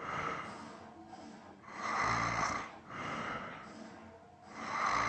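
A person snoring in sleep: two loud snores about three seconds apart, with a softer breath between them.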